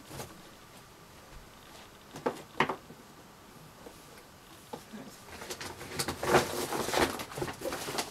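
Books being handled and set down: two knocks a little over two seconds in, then a busy run of rustling and knocking through the second half.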